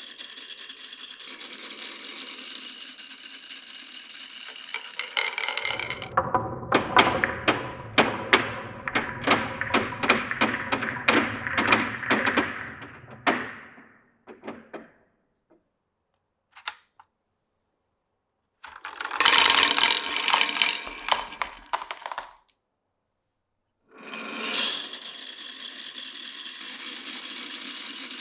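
Marbles running down a wooden marble run: a steady rolling rumble with faint ringing, then a long run of sharp clacks at about three a second. After a pause comes a short burst of dense rattling, and near the end the rolling starts again.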